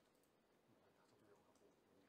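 Near silence: faint room tone with a few faint clicks.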